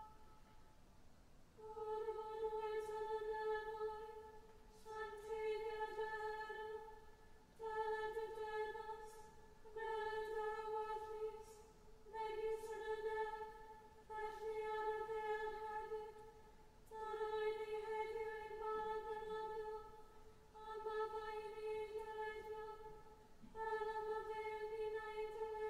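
Choir intoning a prayer in unison on one unchanging reciting note, in phrases a couple of seconds long with brief breaths between.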